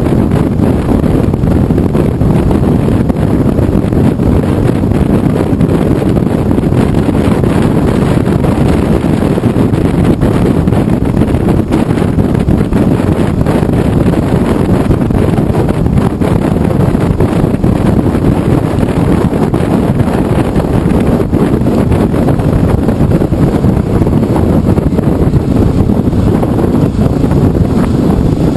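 Wind rushing over the microphone of a camera on a moving motorcycle: a loud, steady low rush with the bike's engine and road noise beneath it.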